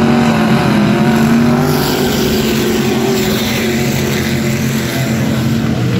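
Vintage dirt-track race cars' engines running together at low speed as the pack circles, a steady drone that wavers slightly in pitch. A rushing hiss swells about two seconds in.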